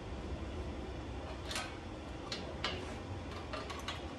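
Hand ratchet wrench clicking as it is worked on a bolt of a mini bike frame. A few separate clicks come first, then a quick run of clicks near the end. The ratchet is being turned in reverse, the wrong way.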